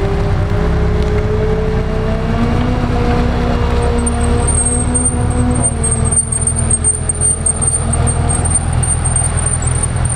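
Sporting trials car's engine running hard. Its pitch rises at the start, then holds fairly steady over a heavy low rumble. A thin high whistle comes in about four seconds in.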